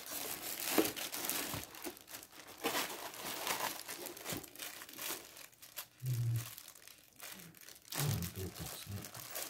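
Plastic wrap crinkling and rustling as hands pull plastic-bagged light-fixture parts and a metal bracket out of a foam-lined cardboard box, in uneven handfuls with short sharp crackles.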